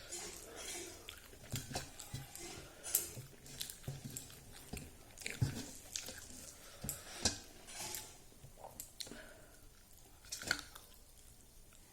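A person chewing and biting food close to the microphone, with irregular wet smacks and crunchy clicks, eating rice with fried dried pork.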